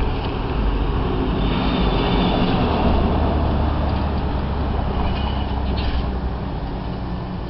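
Steady low rumble of outdoor vehicle noise, with no clear single event.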